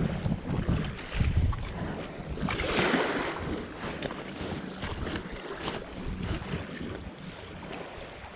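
Seawater splashing and sloshing, with wind rumbling on the microphone early on and a louder rush of water about three seconds in.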